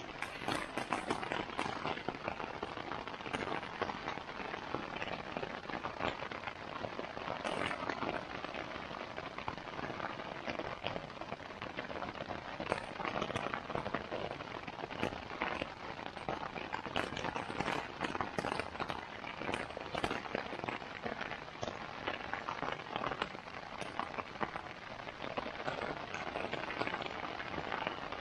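Rain hitting the fabric of a Jack Wolfskin Exolite one-person tent, heard from inside: a dense hiss of drops with many sharper single hits scattered through it.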